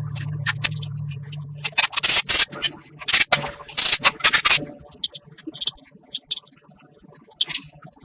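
A steady low hum that stops about a second and a half in, then a series of short, irregular rubbing and scraping strokes, typical of hand work on motorcycle parts in a workshop.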